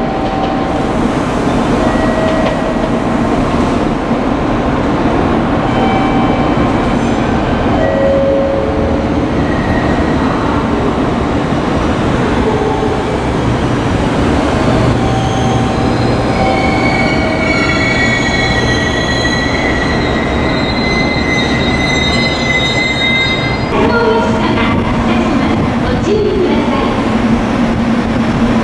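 JR Kyushu electric multiple-unit train, an 811 series, rolling slowly over curved points, its wheels squealing in repeated high, drawn-out tones over a steady rumble.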